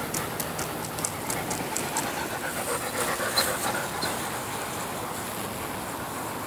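Dog panting in quick, short breaths, about four to five a second, easing off after the first few seconds, over a steady background hiss.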